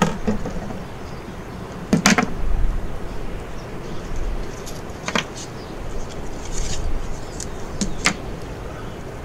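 A few sharp clicks and knocks, the loudest about two seconds in, as pliers and a small lead sinker are handled on a tabletop while the sinker is crimped onto fishing line. A low background rumble sits under them.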